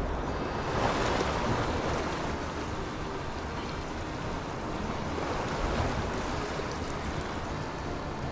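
Steady wash of small sea waves along a concrete seawall, with wind rumbling on the microphone and swelling gently a couple of times.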